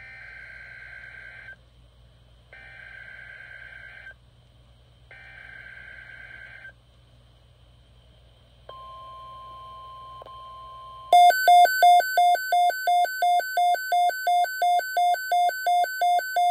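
Midland weather alert radio receiving a NOAA Weather Radio alert: three short bursts of SAME digital header data, each about a second and a half long with a second's gap between, then a steady broadcast alert tone for about two seconds. About eleven seconds in, the radio's own alarm starts: loud rapid beeping, a little under three beeps a second, signalling the tornado watch.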